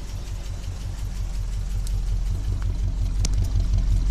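1976 Chevy Blazer's engine idling rough, its exhaust pulsing unevenly at the tailpipe and growing louder toward the end. A short click about three seconds in.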